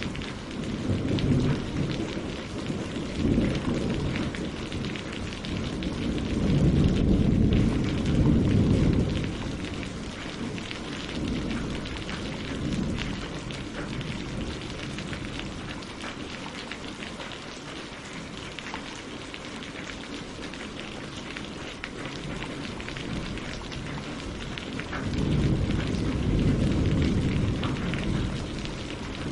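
Steady rain falling on leaves and lake water, with deep rolls of thunder through the first several seconds and again near the end.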